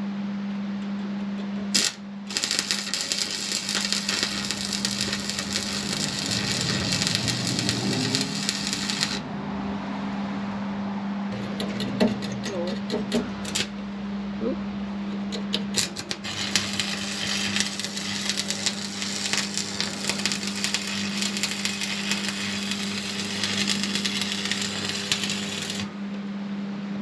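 Stick (arc) welding: the electrode's arc crackling and sizzling in two long runs, the first about two seconds in and the second from about sixteen seconds in to near the end, over a steady hum.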